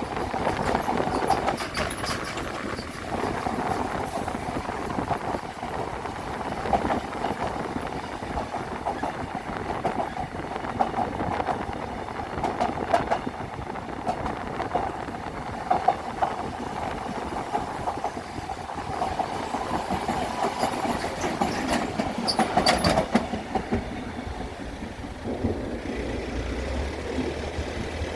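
Seoul Subway Line 2 electric train crossing the steel Jamsil Railway Bridge: steady running noise with scattered wheel clicks, quietening about 25 seconds in to leave a low hum. Wind on the microphone.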